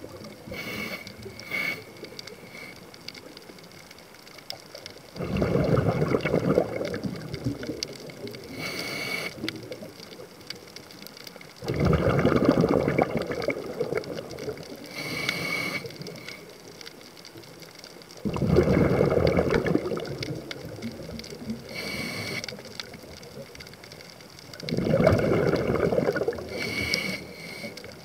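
A scuba diver breathing through a regulator underwater: a short hiss from the regulator on each inhale, then a loud gush of exhaled bubbles. The breaths come about every six and a half seconds, with four exhales.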